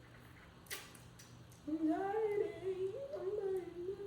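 A click about a second in, then a woman's voice humming a wavering tune that starts a little before halfway and carries on.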